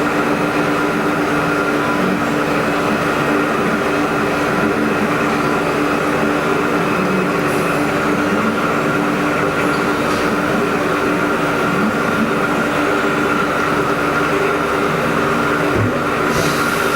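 Haas EC-400PP CNC horizontal mill running under power: a steady machine hum with a constant whine, and a short clunk near the end.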